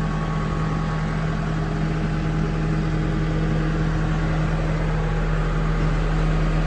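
New Holland B75B backhoe loader's turbo diesel engine idling steadily, heard from inside the cab.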